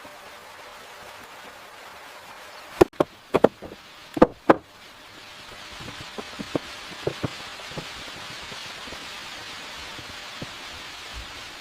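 Wood being struck: a quick series of about seven sharp knocks a few seconds in, followed by a steady hiss with a few light scattered taps.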